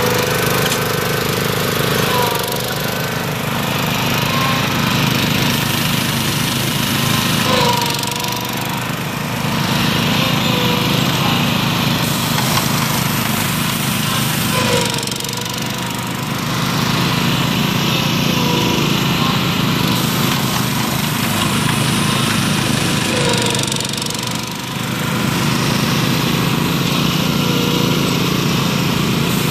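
Small gasoline engines of a ride-on Graco LineLazer 3900 airless line-striping rig running steadily while it drives and sprays parking stripes. The sound dips briefly every several seconds.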